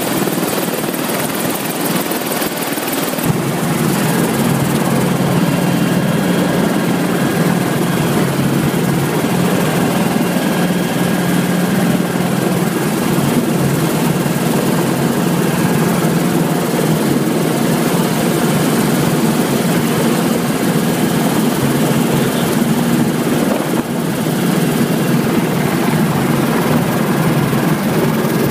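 Helicopter's engine and main rotor running on the ground close by, a loud steady noise, with a deeper steady hum coming in about three seconds in.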